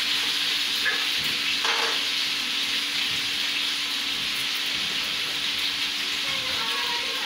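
A steady, even hiss with a faint low hum under it, like food frying or a gas burner in a kitchen.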